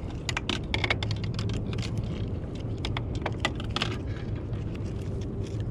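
Irregular light clicks and rattles of fishing tackle being handled while a speckled trout is unhooked over a landing net, over a low steady hum.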